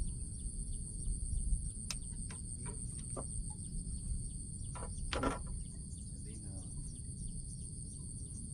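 Insects shrilling steadily in two even high-pitched tones over a low rumble. There are a few faint clicks and one louder knock about five seconds in.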